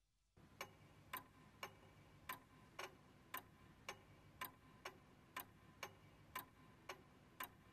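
Clock ticking, about two even ticks a second, over a faint low hum.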